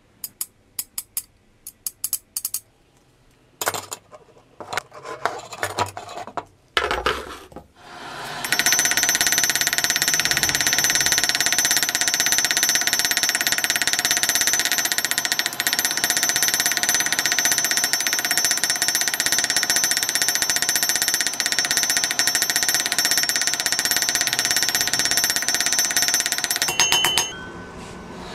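A few light metal clicks and knocks. Then, from about eight seconds in, a loud steady machine noise with several high fixed pitches and a rapid fine pulse runs until it cuts off near the end.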